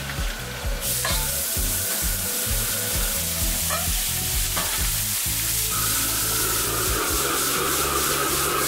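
Bean sprouts and shredded meat hit a hot carbon-steel wok about a second in and start sizzling loudly. The sizzle holds steady as a metal ladle stirs them, with a few short clanks of ladle on wok.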